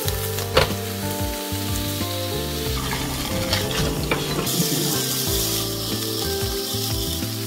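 LA-style beef short ribs sizzling on an electric grill pan, with a few sharp clicks of metal tongs and kitchen scissors handling and cutting the meat.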